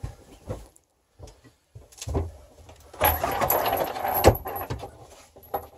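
Knocks and rattles of a hinged wooden couch back being swung up and hung on its chains to form an upper bunk, with a stretch of rustling and rattling about three seconds in and a sharp knock just after four seconds.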